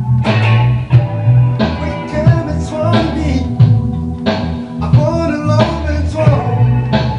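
Rock music with electric guitar, bass, drums and a singing voice.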